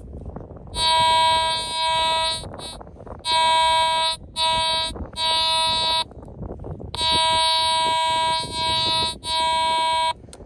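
Teknetics G2+ metal detector giving a steady, buzzy electronic tone at a fixed pitch in about five stretches, each cutting in and off sharply, as the coil is swept back and forth over a buried target to pinpoint it.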